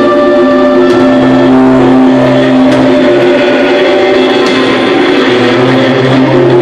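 A live rock band's distorted electric guitars and bass, very loud, holding long droning notes in a slow jam.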